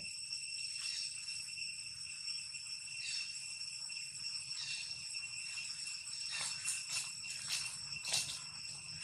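High-pitched insect chorus ringing steadily at several fixed pitches, with several short ticks between about six and eight seconds in.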